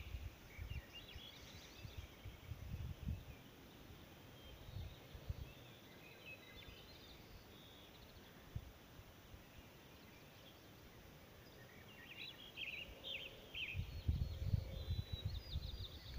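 Wild birds chirping in short bursts, a cluster near the start and another about three-quarters of the way through, over a faint low rumble on the microphone that grows louder near the end.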